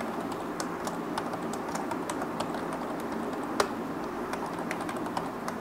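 Computer keyboard typing: irregular key clicks as code is typed, with one sharper keystroke about three and a half seconds in, over a faint steady hum.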